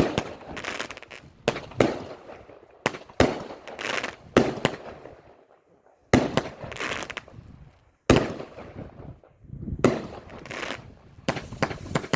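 A World Class Fireworks 'Sin City' 17-shot consumer cake firing. It gives a string of sharp shot reports spaced irregularly, half a second to two seconds apart, each followed by a crackling, hissing trail as the shell breaks.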